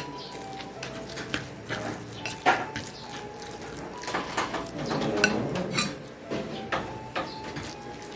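Metal spoon stirring a ground-pork and vegetable mixture in a ceramic bowl, clinking and scraping against the bowl in irregular knocks.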